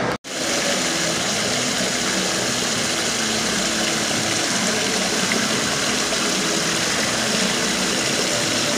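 Water from a ring of fountain jets splashing steadily into the basin of a decorative fountain.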